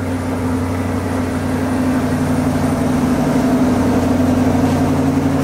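Chevrolet Corvette C8's V8 engine idling steadily with an even low hum.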